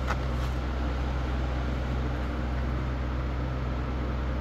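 A steady low machine hum with a constant hiss, and one faint click right at the start.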